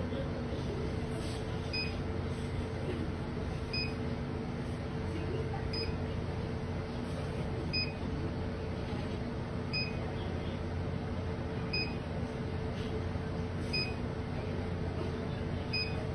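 A short high electronic beep repeating evenly about once every two seconds over a steady low hum and hiss.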